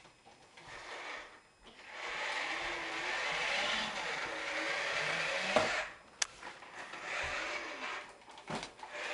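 Toy bulldozer whirring and rattling as it is pushed along, with a few sharp knocks about halfway through and near the end.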